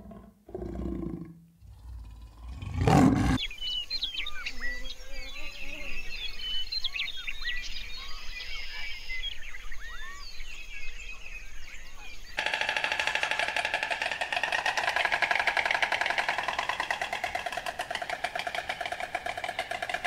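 Leopard growling low, ending in a loud rasping roar about three seconds in. Then many short high chirps, and from about twelve seconds a fast, steady pulsing buzz.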